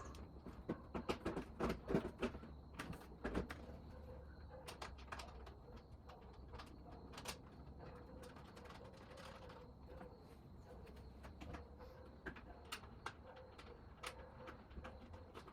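A quick run of knocks and clicks in the first few seconds, then scattered light clicks and taps over a faint steady hum: hands working a wall-mounted clock into place.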